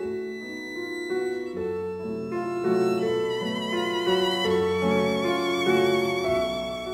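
Background music: a violin melody with vibrato over a held accompaniment of lower notes.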